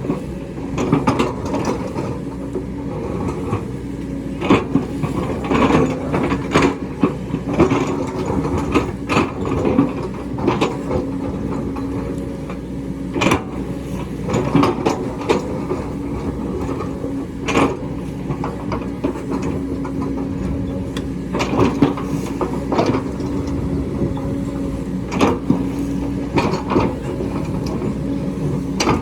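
Excavator's diesel engine running steadily under load, with frequent sharp knocks and scrapes of the bucket working rock.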